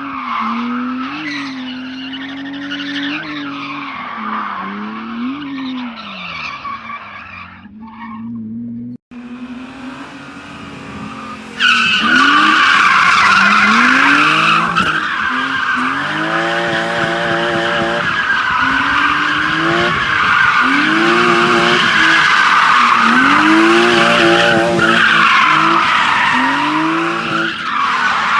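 A car drifting. The engine revs up and down with a lighter tyre hiss at first, then about twelve seconds in a loud tyre screech starts suddenly and holds. Under it the engine revs climb over and over, roughly every couple of seconds.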